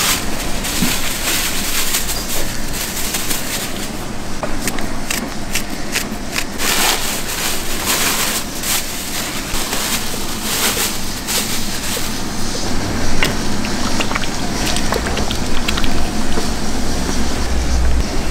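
Work noise of a busy outdoor soup-stall kitchen: a steady low rumble with frequent clinks and clatters of utensils and pots.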